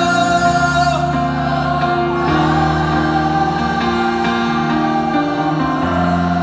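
Live male vocal with keyboard accompaniment: a long sung note with vibrato ends about a second in, then the melody goes on over sustained keyboard chords.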